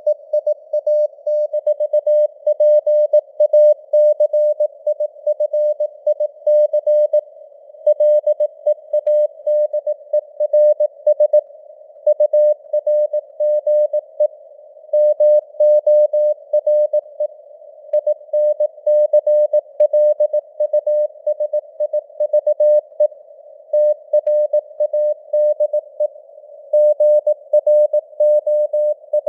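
Morse code sent as a keyed tone of about 600 Hz at 18 words per minute, in short dots and longer dashes with gaps between letters and words. The tone sits in a steady hiss of simulated radio noise that carries on between the elements.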